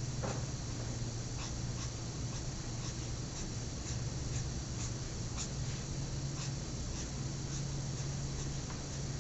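Short drawing strokes on paper, scattered several times a second, as lines are drawn out on a fireworks picture, over a steady low hum.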